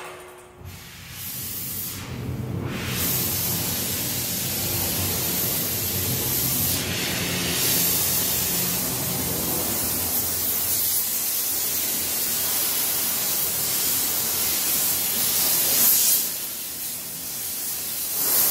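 Oxy-fuel gas torch flame burning with a steady hiss as it heats an aluminium bar. The hiss fills out and grows louder about three seconds in, and swells briefly once near the end.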